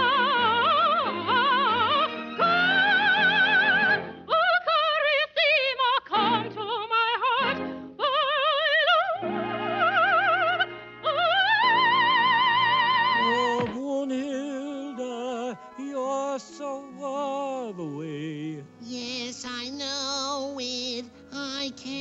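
Cartoon operatic singing: a voice with a wide, fast vibrato holds and slides through long notes over orchestral backing. About fourteen seconds in it cuts to a different operatic piece, an orchestra with a sung line that has slower phrases and falling glides.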